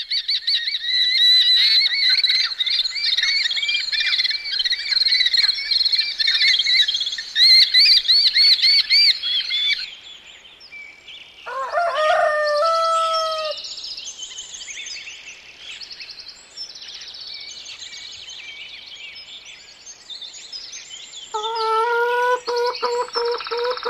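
Birds chirping: a dense chorus of high chirps for about ten seconds, then thinner chirping broken twice by a lower, repeated call, once around the middle and again near the end.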